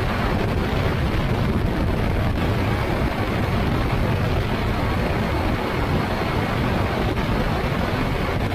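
Motorized hang glider trike in flight: a steady rush of airflow buffeting the wing-mounted camera's microphone, blended with the drone of the rear-mounted engine and pusher propeller.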